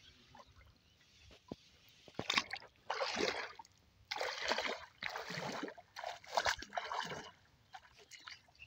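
Bare feet wading through shallow pond water, splashing and sloshing with each step. The splashes begin about two seconds in and come roughly once a second.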